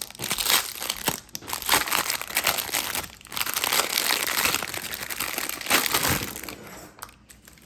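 Plastic wrapping of a small toy packet crinkling and crackling as it is worked open by hand; the crackle stops about six seconds in.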